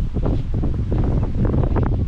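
Wind buffeting the microphone: a loud, uneven low rumble, with some scattered rustling.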